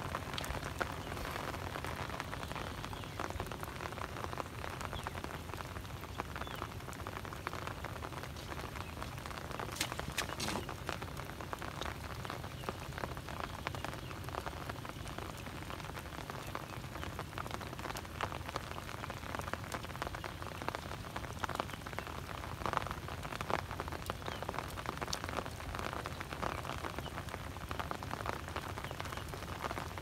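Steady rain pattering on the shallow water and mud of a flooded rice field, with a few sharper drop or splash ticks about ten seconds in and again past twenty.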